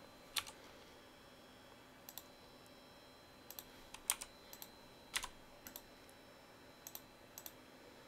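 Quiet clicking of a computer mouse and keyboard while working in CAD software: about a dozen short, sharp clicks, some single and some in quick pairs, irregularly spaced, over a faint steady high whine.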